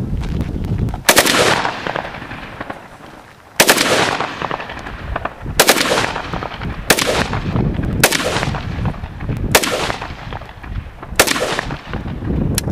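Norinco Type 56 rifle, a Chinese AK-47 in 7.62×39mm, firing about seven shots a second or two apart, each followed by a long echoing tail.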